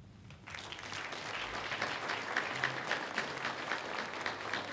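Audience applauding at the end of a speech: dense clapping from many hands that starts about half a second in, swells within a second and then holds steady.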